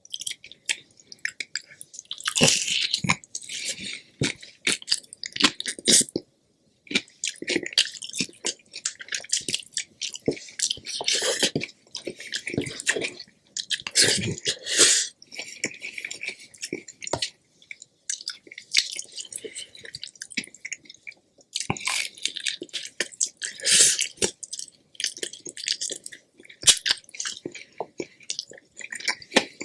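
Close-miked eating sounds: wet chewing and mouth smacks in quick, irregular clicks, with a brief pause about seven seconds in.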